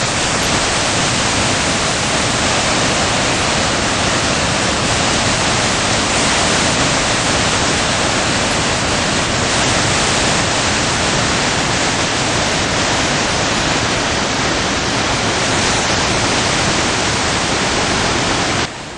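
Steady rush of the fast-flowing Capilano River, a dense, loud hiss of water. It drops away abruptly near the end.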